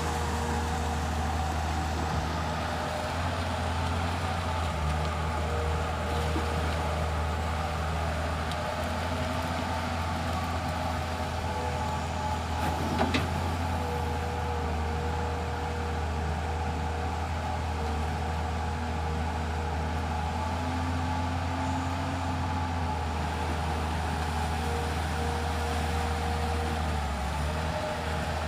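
Komatsu PC210 excavator's diesel engine running steadily, with a higher hum that comes and goes over it and one short knock about halfway through.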